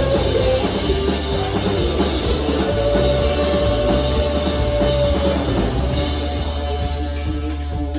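Live band playing an instrumental passage, with drum kit and guitar, and one note held for a couple of seconds near the middle.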